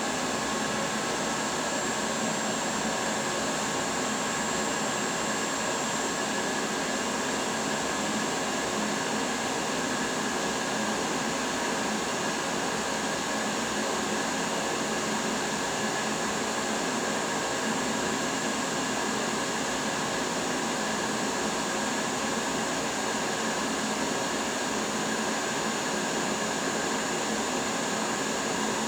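Bridgeport CNC vertical machining centre powered up and standing idle during start-up: a steady, even machine whir with a faint high whine and no changes.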